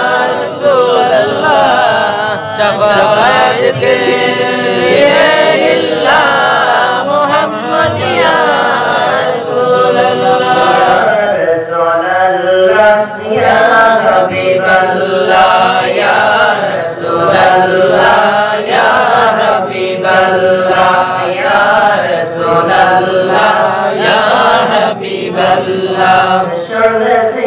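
Men's voices chanting a devotional Islamic naat, unaccompanied by instruments, in a continuous flowing melody sung into a microphone.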